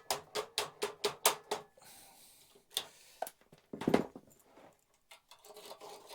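Quick run of hammer strikes, about four a second, each knock with a short ring, stopping about a second and a half in; then a few scattered knocks and a louder thud around four seconds in.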